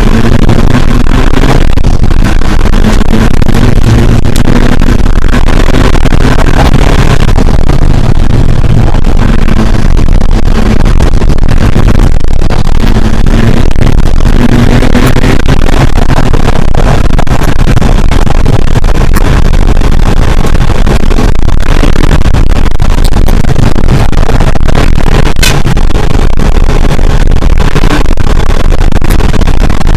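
Rally car engine at full load, heard from inside the stripped cabin and very loud throughout. Its pitch climbs and falls again several times as the car accelerates and shifts through the gears.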